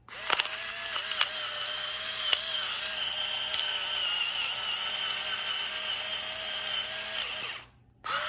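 Battery-powered electric salt and pepper grinder's small motor running steadily, a whine with a few sharp ticks from the grinding mechanism. It stops near the end, then runs again briefly.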